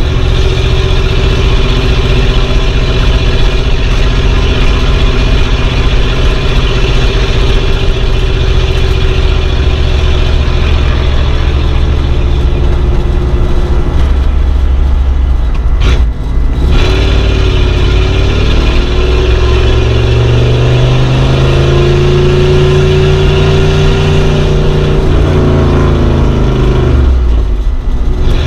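Old car engine running under way at a steady note. About halfway through it breaks off briefly, like a gear change, then the pitch climbs as the car accelerates and eases back down near the end.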